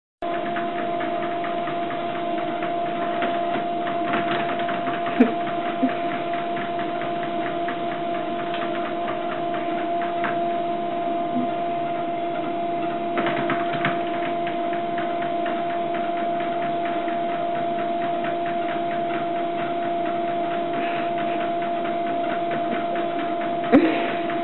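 Treadmill motor and belt running steadily with a constant whine, with a few brief knocks about five seconds in and near the end.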